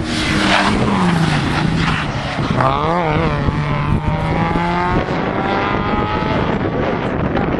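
Rally car engine revving hard on a special stage. Its pitch wavers quickly up and down around the third second, then climbs as it accelerates, with a gear change about five seconds in, and fades near the end.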